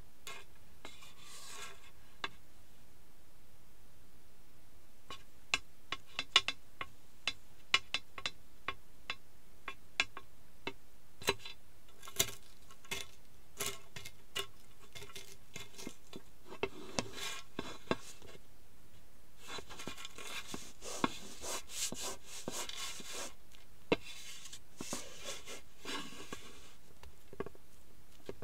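Cheetos crunching and crackling as they are crushed under the soles of gold open-toe high-heeled sandals: scattered sharp snaps from about five seconds in, with denser stretches of crunching later on.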